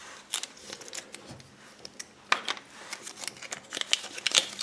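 Hands handling small plastic toy pieces from a Kinder Surprise egg: scattered light clicks and taps, a few about halfway through and a quicker run near the end.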